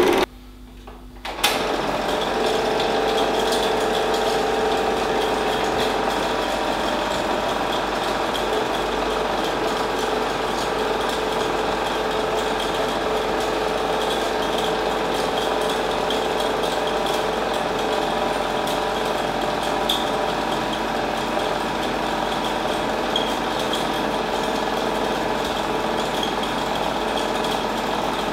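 Chinon Sound 8500 Super 8 projector running steadily: the even mechanical whir of its motor and film-transport mechanism. The sound drops low for about the first second and a half, then comes back and holds steady.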